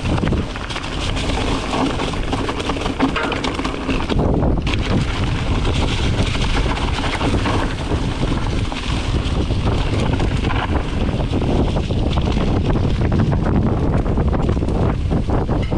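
Wind rushing over the microphone of a mountain bike riding singletrack, with a steady low rumble and many small knocks and rattles from the bike rolling over dirt and rocks.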